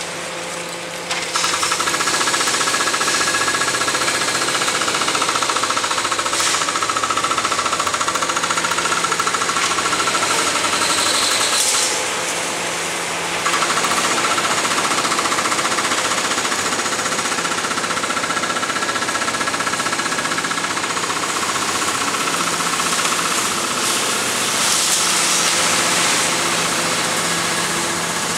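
Excavator-mounted hydraulic breaker hammering at reinforced concrete in a fast, steady rattle, with the excavator's diesel engine running underneath. The hammering starts about a second in, stops briefly around the middle, then picks up again.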